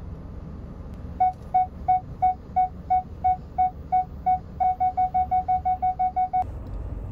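Car parking sensor beeping as the car closes on an obstacle: short even beeps about three a second that quicken to about six a second, then stop abruptly, over the low hum of the car.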